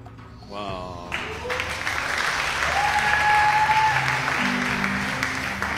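Studio audience applauding, starting about a second in and swelling, then easing off near the end, over game-show background music with long held notes.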